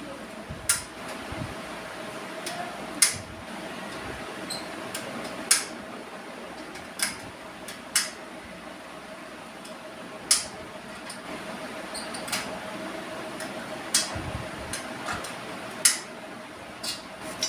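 Sharp clicks at uneven intervals, about one every one to three seconds, over a steady faint hum with a single mid-pitched tone.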